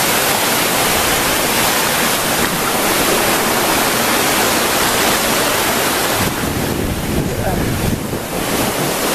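Rushing water from the waterfall and rocky stream, a loud steady hiss. About six seconds in, the higher hiss drops back and a low rumble of wind buffeting the phone's microphone takes over.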